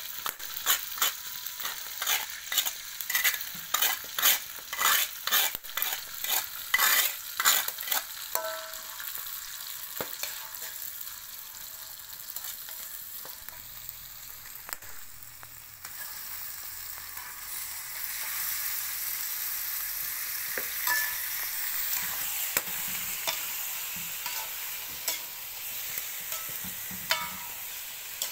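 Ground spice paste frying in hot oil in a wok. For the first eight seconds a metal spoon knocks and scrapes the paste out of a stone mortar, about two strokes a second; then a steady sizzle, which grows louder about eighteen seconds in, with a few clicks of the utensil.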